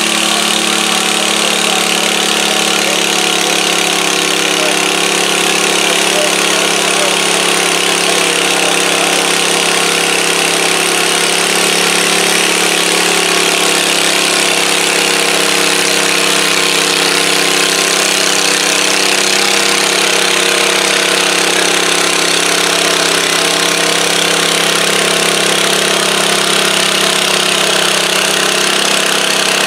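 Garden tractor engine idling steadily.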